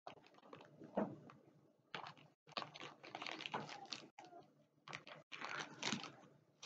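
Crinkling and rustling of a parcel's packaging being handled and opened by hand, in uneven bursts with short pauses.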